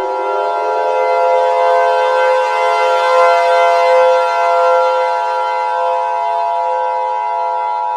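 Civil defense siren that winds up in pitch over the first second and then holds a steady wail, layered with the Emergency Alert System's two-tone attention signal. The attention tone cuts off sharply at the very end while the siren keeps sounding.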